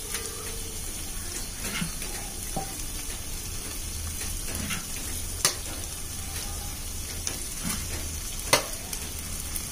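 Steady sizzling hiss and low hum from the biryani pot on the stove, with a few sharp clicks, the loudest about five and a half and eight and a half seconds in, as cooked rice is spooned in over the chicken layer.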